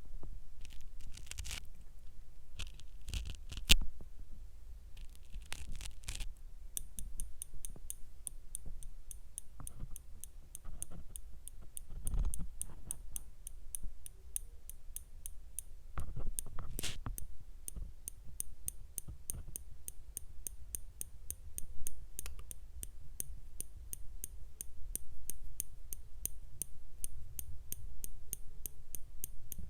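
Light scraping and crinkling handling noises for the first few seconds, then a steady, even run of light ticks, a few a second, broken by an occasional louder tap or rustle.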